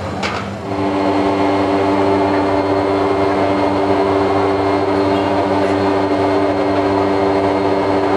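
A loud, steady machine drone with a strong, unchanging two-note hum, setting in about a second in and holding level throughout.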